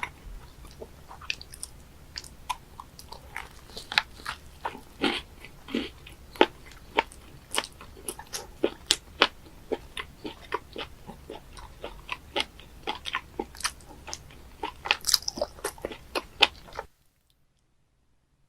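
Close-miked chewing of raw live octopus: irregular wet clicks, smacks and crunches from the mouth. They stop abruptly near the end.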